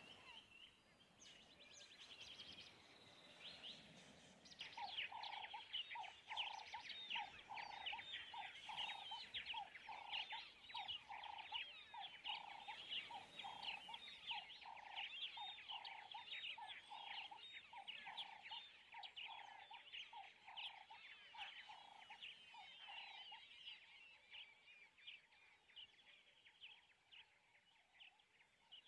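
Faint animal calls: a dense run of quick, high chirps, with a lower call repeating about twice a second. The lower call stops about three quarters of the way through, and the chirping fades near the end.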